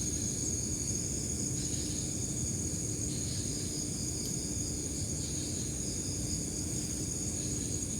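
Steady, high-pitched chirring of night insects, with a faint low hum and a low background rumble beneath.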